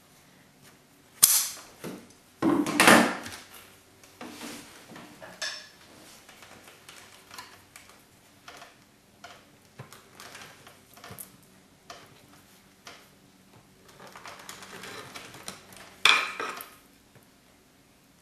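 Scissors and a flat-head screwdriver being handled on a woven fiber rush (twisted paper) seat as the rush tail is cut and tucked under the weave: scattered clicks and rustles, with a few sharper metal clatters about a second in, around three seconds in and near the end.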